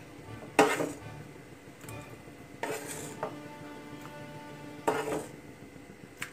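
A metal spoon scraping and knocking against a pan and bowl as thick curry is spooned out, with about five sharp clinks spaced a second or two apart.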